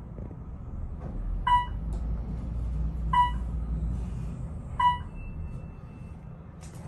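Otis traction elevator car running in its shaft behind closed landing doors, a low rumble that fades about four and a half seconds in. Over it come three short electronic dings, evenly spaced about a second and a half apart, the last as the rumble stops.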